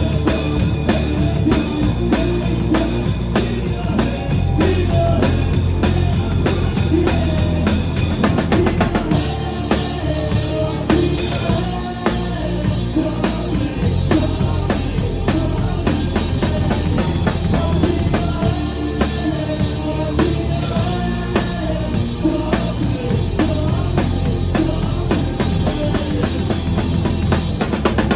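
Band music with a drum kit keeping a steady beat over bass and a wavering melodic line, stopping just after the end.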